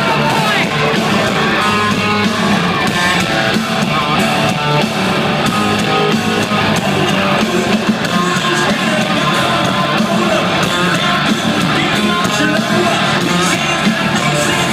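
Live rock band playing loud at a concert, with distorted electric guitars, drums and a lead vocal, recorded on a phone from the crowd.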